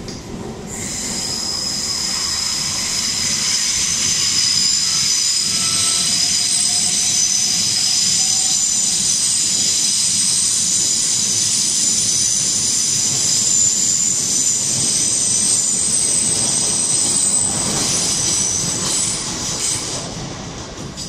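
Railway passenger coaches' wheels squealing as the train moves slowly round curved track: several steady high-pitched squeals sound together over the rumble of the wheels, swelling in about a second in and fading near the end.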